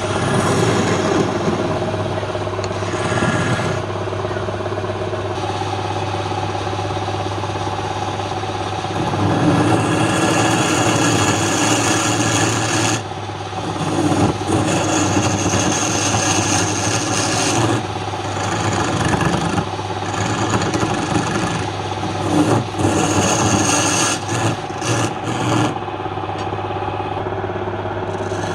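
Woodturning lathe running with a steady motor hum, while a turning tool scrapes the spinning wood in uneven bouts that swell and ease off.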